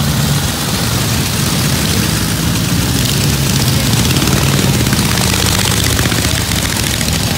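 Antique pre-1929 motorcycle engines running as the bikes pull away from the start one after another, a steady low engine sound with a fast firing beat.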